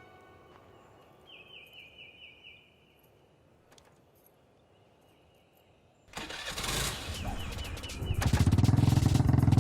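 Faint short high chirps repeating in quiet surroundings, then about six seconds in a vehicle engine starts with a sudden rattly burst and settles into loud steady running about two seconds later.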